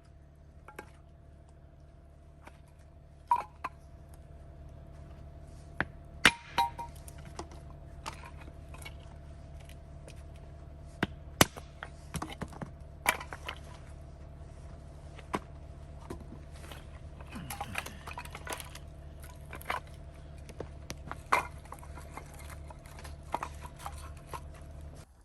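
Scattered sharp clinks and knocks of small hard objects, a dozen or so at irregular intervals, over a steady low hum.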